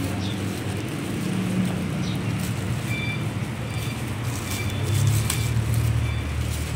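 Clear plastic bag crinkling as a wrapped motorcycle speedometer assembly is handled, over a steady low rumble of a vehicle engine.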